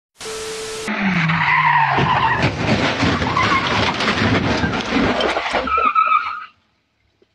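Car tyres squealing and skidding in a long screech mixed with vehicle noise, cutting off suddenly about six and a half seconds in.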